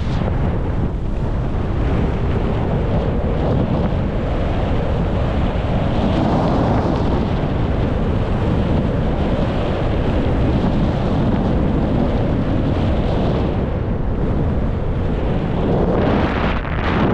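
Wind rushing over a skier's camera microphone at speed, with the hiss of skis sliding on groomed snow that swells a few times.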